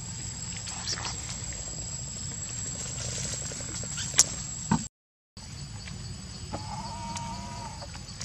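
A baby macaque's thin, held whimpering call about two thirds of the way through, over a steady outdoor background hum. A sharp click comes shortly before the sound cuts out for half a second.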